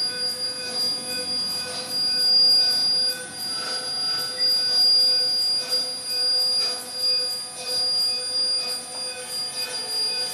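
Electronic drone of several steady tones, one of them piercingly high, layered over a faint hiss and swelling and dipping in level. It comes from a sound-art performance played through coil-and-magnet sound objects.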